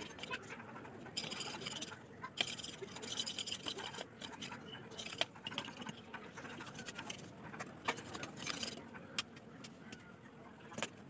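A knife shaving and scraping thin bamboo strips by hand, an uneven scratching broken by a few sharp taps of the blade on a wooden block.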